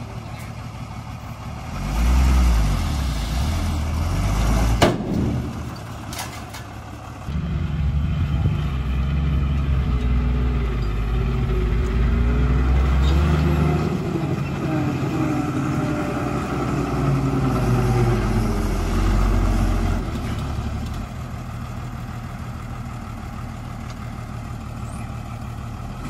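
Komatsu D20P bulldozer's diesel engine working, its pitch rising and falling under load, with one sharp knock about five seconds in. It drops to a quieter, steadier run for the last few seconds.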